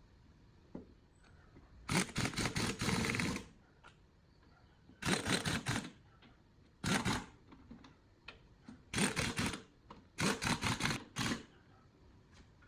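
A fast mechanical rattle in six short bursts separated by quiet gaps; the first burst, about two seconds in, is the longest, at over a second.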